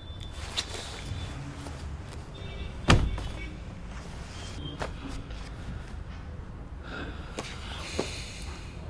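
A loud, heavy thud about three seconds in, among a few lighter knocks and clicks, with rustling near the end: someone moving about on a bed and handling a phone.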